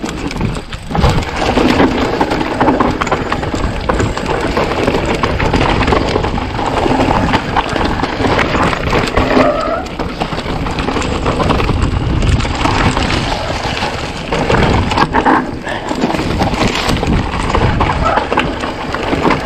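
Mountain bike being ridden over rough trail ground: a continuous rushing noise with frequent knocks and rattles from the bike.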